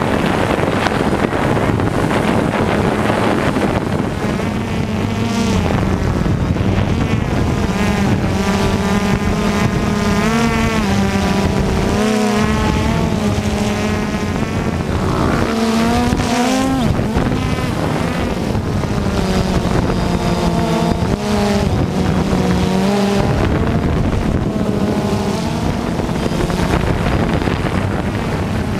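DJI Phantom quadcopter's motors and propellers buzzing in flight, heard from its onboard camera: a steady low hum with higher tones that keep wavering up and down as the motors adjust speed.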